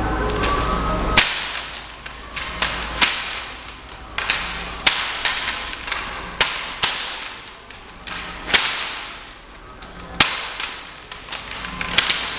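A long wooden staff swung in fast, hard strokes, giving a dozen or so sharp cracks at uneven intervals, each ringing briefly in the room. About a second of steady low hum comes before the first crack.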